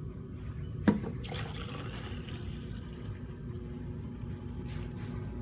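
A pre-workout drink being chugged: one sharp click about a second in, then a steady liquid sound.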